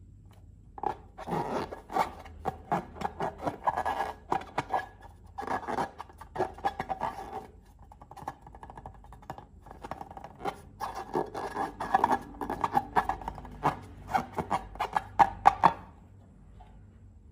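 Crackly clicking and scraping from hands working slime ingredients, in dense clusters with a quieter stretch in the middle; it dies away a second or so before the end.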